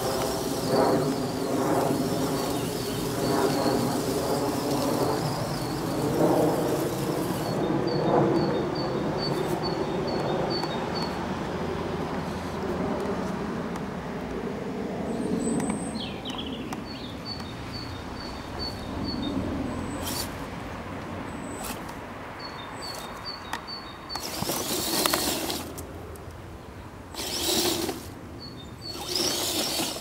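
RC 6x6 Mercedes truck's motor and gears whining, the pitch rising and falling as it drives over leaf litter; the whine fades after the first half. A bird repeats a quick series of short high notes several times, and three short, loud rushes of noise come near the end.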